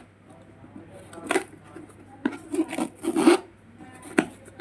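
Packaging being opened by hand: several short rustling, scraping bursts, then a sharp click about four seconds in.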